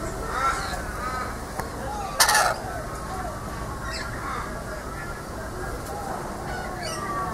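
Rainbow lorikeet giving one loud, harsh screech about two seconds in, among softer chattering bird calls.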